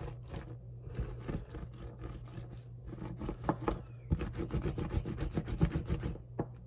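Hands rolling a log of oven-bake polymer clay back and forth on a countertop: skin and clay rubbing and scraping against the hard surface, with many small ticks.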